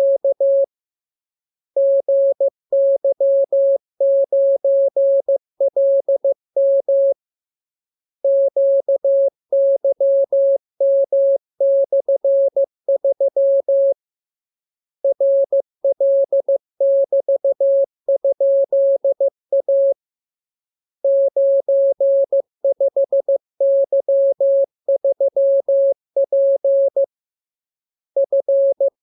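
Morse code practice: a single pure, mid-pitched beep tone keyed rapidly in dots and dashes. The characters come in runs of five or six seconds, with a pause of about a second between runs.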